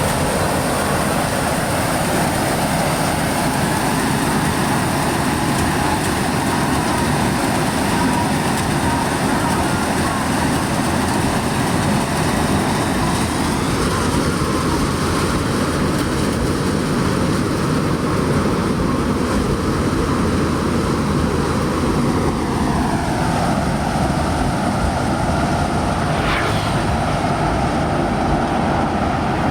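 Hira 985 self-propelled combine harvester running, a loud steady engine and machinery drone. About 22 seconds in, a whine in it drops in pitch and then holds steady.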